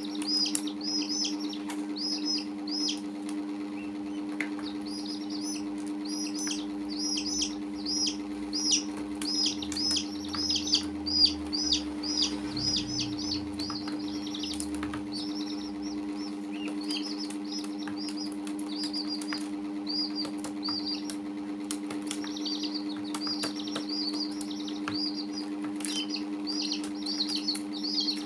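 Young chicks and a duckling peeping, a constant stream of short, high, falling peeps, several a second, over a steady low hum.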